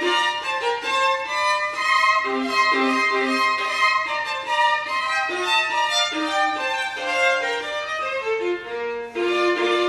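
Unaccompanied violin playing, notes changing several times a second and often two at once.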